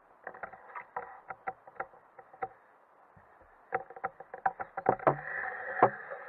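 Landing net and its pole being worked through pond water to net a fish: small splashes and knocks in irregular bunches, with a lull about halfway and a denser run near the end.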